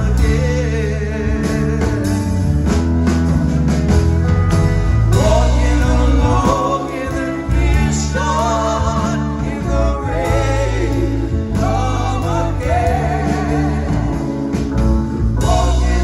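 Live rock band playing: a lead vocal with vibrato sung into a microphone over electric guitar, drums and keyboards, recorded from within the audience on a phone.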